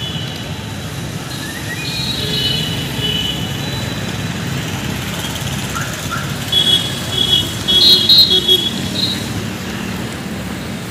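Steady road traffic noise, with high-pitched squeaky chirps coming and going, loudest from about six to nine seconds in.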